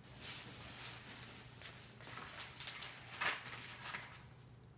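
Faint kitchen noises while dishes are being done: a short rush of hissing noise near the start, scattered light clicks, and one sharper clatter or knock about three seconds in.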